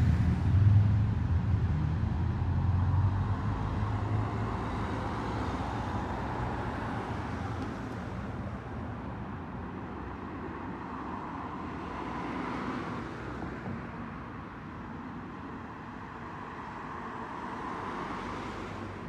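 Race convoy motor vehicles passing on the road. An engine's low rumble fades away over the first few seconds, then vehicles swell past twice, near the middle and again near the end.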